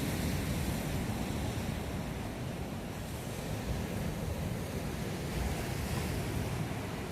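Atlantic Ocean surf breaking and washing on the beach, a steady rush that swells and eases slightly, with some wind buffeting the microphone.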